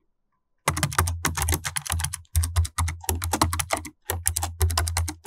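Fast typing on a computer keyboard: rapid key clicks starting just under a second in, with two brief pauses.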